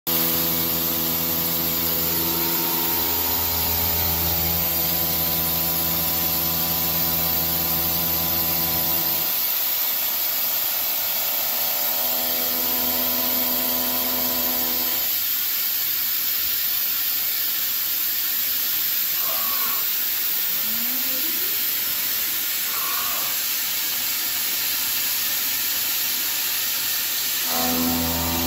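CNC vertical milling machine cutting steel with an end mill: a steady, loud hiss throughout, under a multi-toned hum that runs for the first nine seconds, drops out, returns for a few seconds in the middle, and comes back near the end.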